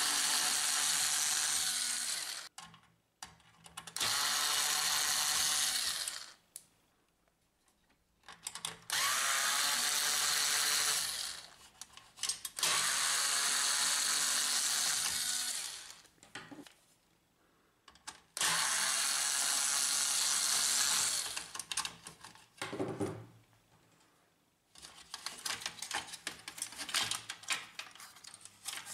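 Cordless electric screwdriver running in five bursts of two to three seconds each, backing out the screws of a laser printer's modem bracket. Light clicks and rattles near the end.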